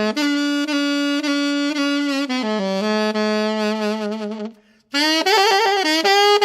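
E-flat alto saxophone playing a melody solo: a long held note that steps down lower, a short break, then a quick run of notes leading up to a held higher note.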